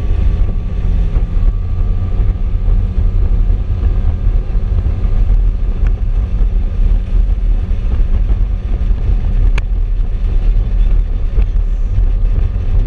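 Wind buffeting the microphone of a motorboat under way, with the boat's motor droning steadily underneath. A single sharp click near the end.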